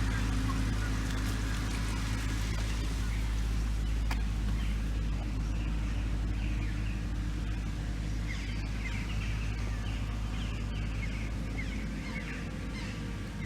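Steady low rumble with a faint hum in it, which starts and stops abruptly. Small birds chirp faintly over it from about five seconds in, with a single click near four seconds.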